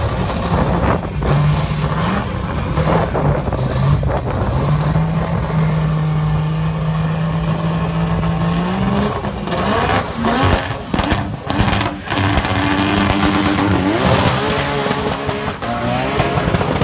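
A modified Ford Cortina and a Nissan Skyline race car are held on steady revs at a drag-strip start line. About nine seconds in they launch and accelerate away hard, the engine pitch climbing and falling back several times through gear changes.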